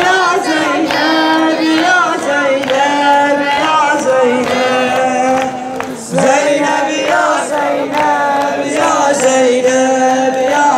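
Men's voices chanting a Shia latmiya mourning lament in the shur style, a drawn-out melody of long held notes that slide between pitches, with a brief break about six seconds in.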